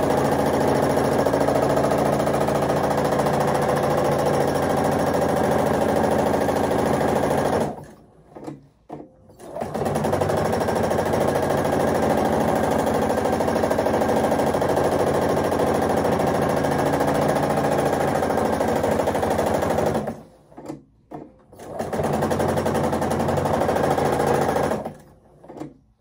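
Domestic sewing machine stitching steadily at a fast, even speed while free-motion quilting, in three long runs: it stops for about two seconds about eight seconds in, again for about two seconds around twenty seconds in, and stops near the end.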